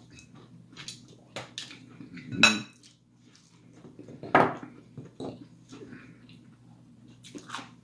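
Metal serving tongs clinking against a glass bowl and plates, with scattered clicks and clatter of tableware. The loudest clink rings briefly about two and a half seconds in, and another knock comes about four and a half seconds in.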